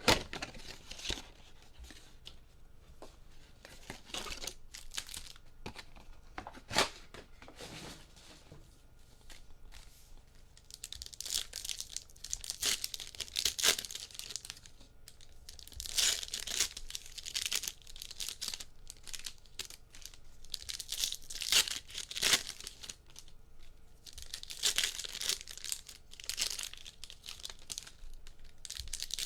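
Trading-card box and pack wrappers being torn open and crinkled: repeated bursts of tearing and crinkling, with a few sharp clicks in between.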